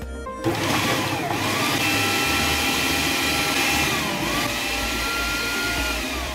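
Electric food processor running, chopping onions and Scotch bonnet peppers. The motor starts about half a second in, its whine dips in pitch twice, and it winds down with a falling whine near the end.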